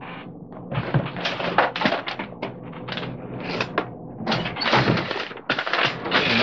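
Irregular clicking, tapping and knocking of small objects, such as a plastic container, being handled on a desk.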